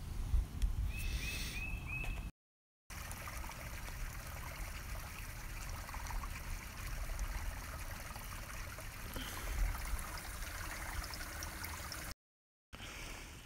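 Outdoor backyard ambience: a steady rushing hiss with low rumble on the microphone, a bird chirping four times in quick succession about a second in, and the sound cutting out briefly twice at edits.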